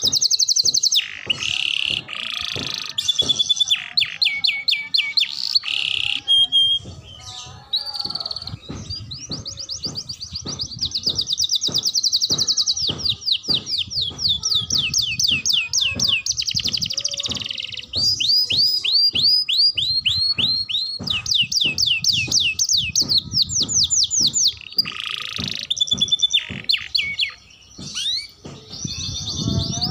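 Young domestic canary practising its song: fast trills and rolls of quickly repeated notes, switching to a new phrase every second or two, with a short break a little before the end.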